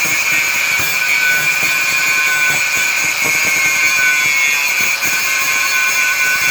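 A steady, high-pitched mechanical whine with hiss, running without a break.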